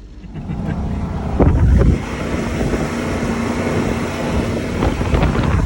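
A vehicle engine running under load, pulling, with wind buffeting the microphone. It is loudest about a second and a half in, and a steady hum follows for a few seconds.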